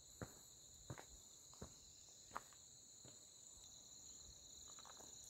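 Faint, steady high-pitched chorus of crickets, with five soft footsteps on a stony track, about one every 0.7 s, in the first three seconds.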